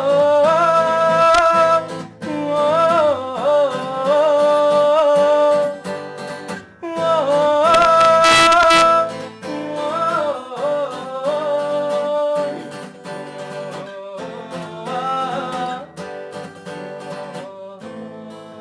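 Acoustic guitar played live under a singing voice that holds long notes, bending and sliding between them in ornamented phrases. After about twelve seconds the singing falls away and softer guitar carries on.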